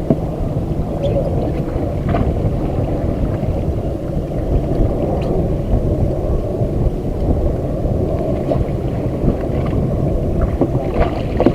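Wind buffeting the microphone on a fishing boat: a steady low rumble with a few faint clicks.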